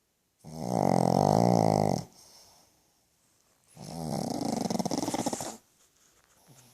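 Pug snoring loudly: two long snores, each lasting nearly two seconds, with a pause of about a second and a half between them.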